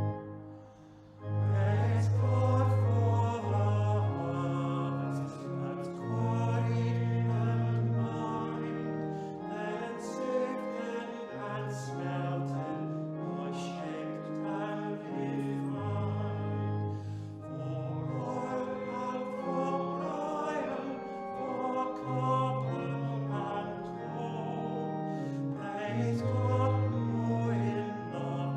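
A hymn sung by many voices together, with held bass notes from an instrumental accompaniment underneath; the music breaks off briefly about a second in, then the next phrase starts.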